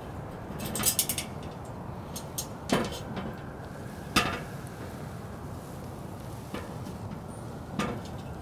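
Sharp metallic clinks and knocks from a cat's claws and paws striking an aluminium extension ladder as it climbs: a quick cluster about a second in, then single knocks every second or two, over steady background noise.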